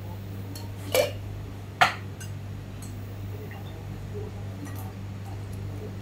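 Kitchen dishes and utensils clinking: two sharp clinks, about a second in and just under two seconds in, then a few fainter taps, over a steady low hum.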